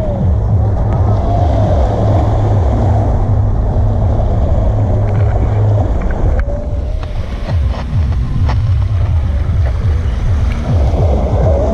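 Wind buffeting the microphone with a heavy rumble, heaviest in the first half, over small waves breaking and washing on a pebbly shore, with a few sharp clicks in the second half.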